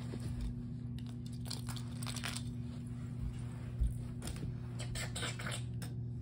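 Hot Wheels die-cast toy cars being handled and pushed along, with scattered small clicks, clinks and rustles, over a steady low hum. A single low thump comes a little under four seconds in.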